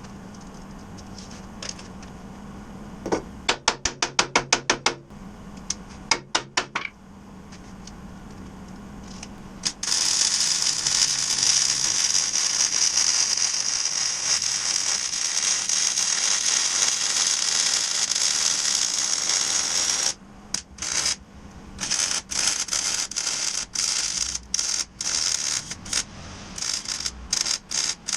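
Metal fabrication tool work. First a quick run of sharp metallic strikes that ring, about four a second. Then about ten seconds of steady hissing, followed by short stop-start bursts of the same hiss.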